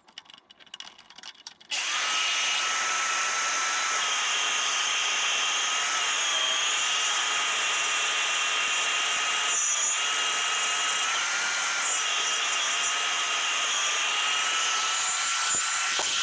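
Power tool cutting through steel bar stock, starting about two seconds in and running with a steady whine and hiss; the steel is being split into the hinge's knuckle sections.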